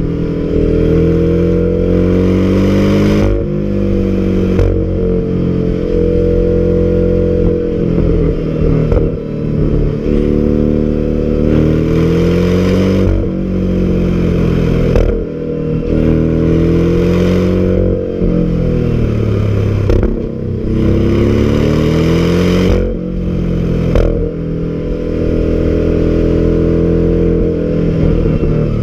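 Porsche sports car engine and exhaust under hard driving: the note climbs in pitch through each gear and drops suddenly at the gear changes, rising and falling again and again.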